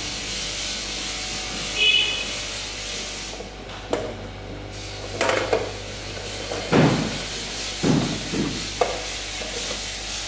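Hollow knocks and clunks as white plastic bottles and machine parts are handled and set down on a filling machine's conveyor, half a dozen short strikes from about four seconds in, over a steady hiss and hum. A brief high chirp sounds about two seconds in.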